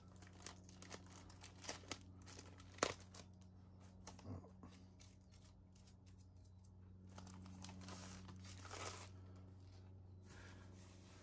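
Faint crinkling and tearing of plastic wrapping being opened and pulled off a diamond painting canvas, in scattered rustles with a sharp click about three seconds in.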